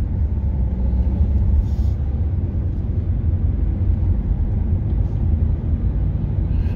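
Steady low rumble of a car's engine and tyres on tarmac, heard from inside the cabin while driving along at town speed after moving off from traffic lights.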